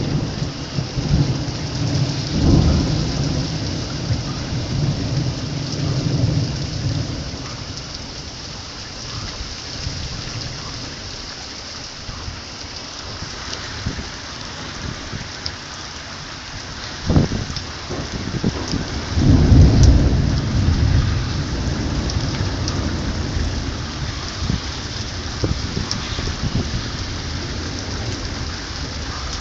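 Thunderstorm: rain falls steadily throughout while thunder rolls. A long low rumble comes at the start. Past the middle there is a sharp crack, followed shortly by the loudest rumble.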